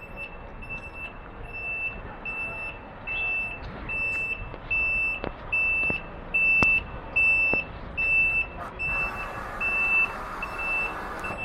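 Reversing alarm of a concrete pump truck backing up, a steady high beep repeating about twice a second, loudest around the middle. A few sharp knocks sound midway.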